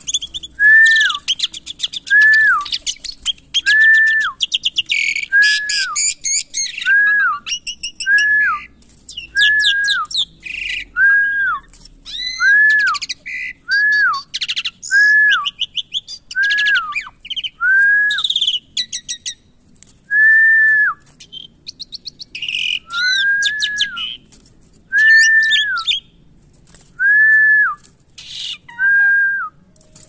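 Asian pied starling calling: bursts of rapid, clicky chatter and trills, with a clear whistle note that rises and falls, repeated every second or so.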